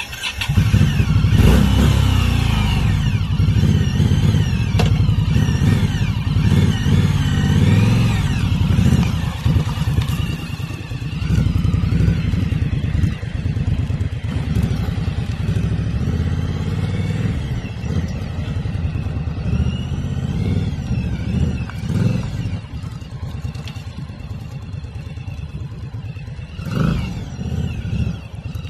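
2018 Indian Scout Sixty's V-twin engine running and being revved, then pulling away as the motorcycle is ridden around; it grows somewhat quieter in the last several seconds.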